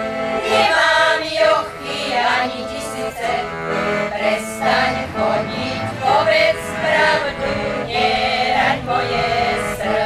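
A group of women singing a Slovak folk song together in phrases, accompanied by an accordion.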